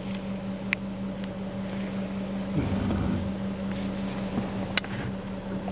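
Steady low mechanical hum at one constant pitch, with a faint low sound about two and a half seconds in and two light clicks.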